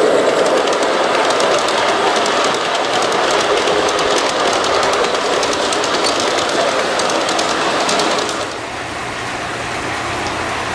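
G scale model freight cars rolling past close by on a curve of elevated track, their wheels rumbling and clicking rapidly over the rail joints. The sound drops to a quieter, steadier running noise about eight seconds in.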